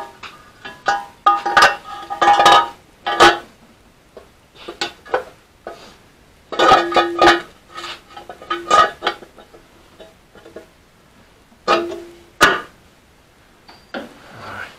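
Metal engine parts and tools clinking and tapping as the rocker cover and its fittings go back onto the engine. The knocks come irregularly and in clusters, each ringing briefly at the same few pitches.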